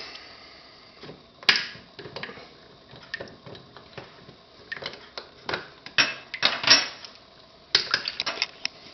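Irregular clicks, clacks and short scrapes of faucet handle parts being fitted and handled by hand, with one sharp click about a second and a half in and clusters of clatter later on.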